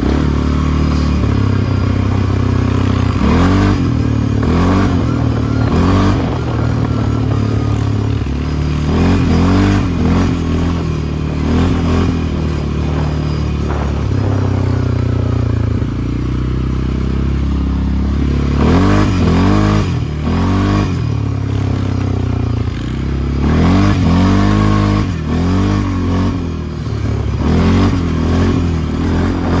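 ATV engine running and revving up and down over and over during the ride, with scattered knocks and rattles.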